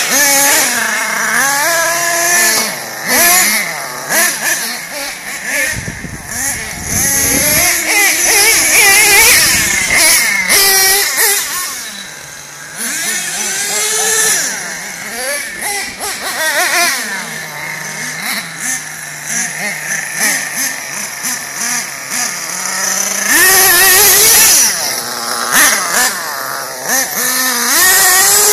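Nitro RC monster truck's small glow-fuel two-stroke engine, revving up and down again and again as the truck is driven, settling to a steady idle between bursts. It goes to loud full throttle twice, about a third of the way in and again near the end.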